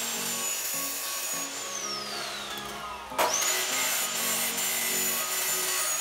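Bosch abrasive cut-off saw cutting steel square tubing, its high motor whine held while the disc grinds through the metal. About a second and a half in the saw winds down with a falling whine. About three seconds in it starts again sharply, climbs quickly back up to speed and keeps cutting. Background music plays underneath.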